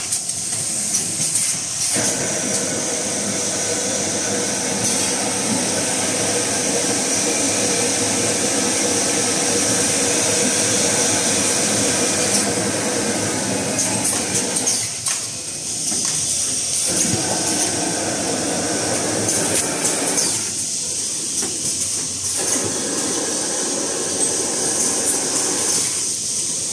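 Automatic toilet-roll packing machine running: a steady mechanical clatter with a continuous high hiss, easing off briefly a few times.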